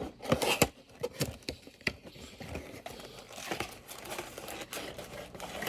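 Plastic shrink wrap and packaging crinkling and rustling, with scattered clicks and taps, as a sealed box of trading card packs is unwrapped and emptied.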